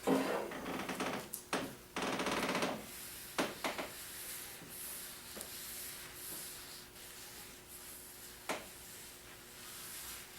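Applicator rubbing sanding sealer onto a wooden tabletop: a long wiping stroke at the start and another about two seconds in, then a few short strokes with faint pauses between.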